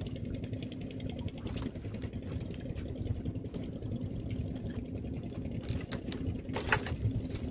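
Boat engine running steadily with a low, even hum, with two short knocks about one and a half seconds in and near the end.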